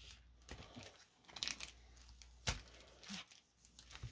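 Pokémon trading cards being gathered off the playmat and stacked by hand: quiet scrapes and shuffles of card stock, with a sharp tap about two and a half seconds in.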